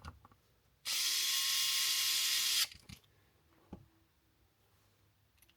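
Small electric screwdriver running steadily for about two seconds, driving a beadlock ring screw into an aluminium RC crawler wheel. A single light click follows about a second later.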